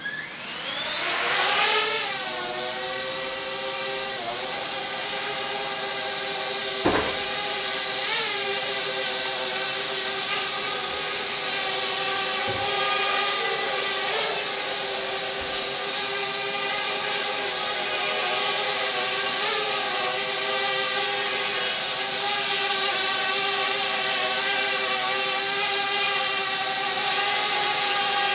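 Small quadcopter drone's motors and propellers spinning up for takeoff, a rising whine over the first two seconds, then a steady multi-toned buzz as it hovers, with small pitch wobbles every few seconds as the motors adjust.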